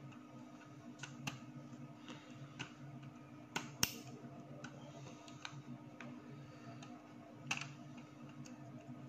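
Small screwdriver clicking and scraping in the plastic screw terminals of a Carel digital temperature controller as wires are fastened. Scattered light clicks, the sharpest a little under four seconds in, sound over a faint steady low hum.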